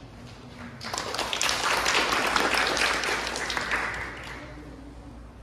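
Small audience clapping for about three seconds, starting about a second in and fading away: applause greeting a performer who has just bowed.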